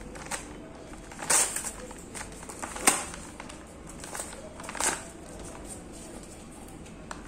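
Padded paper courier mailer being handled and picked at by hand: rustling and crinkling of paper, with three sharper crackles spread through, the loudest near the middle.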